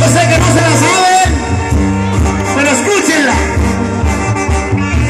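Live banda sinaloense brass band playing, heard through a phone microphone: a pulsing tuba bass line under trumpets and other brass, with a man's lead voice over the band.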